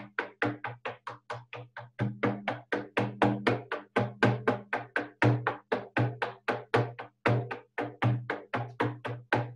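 Large single-headed frame drum with a painted hide head, struck with a beater in a steady, even beat of about four strokes a second, each stroke with a low boom, getting louder about two seconds in. It is the repetitive beat of a shamanic drumming journey.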